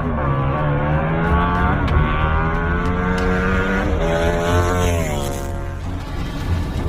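Racing motorcycle engine accelerating hard through the gears: its pitch climbs, drops sharply at an upshift about two seconds in and again about four seconds in, climbs once more, then falls away near the end.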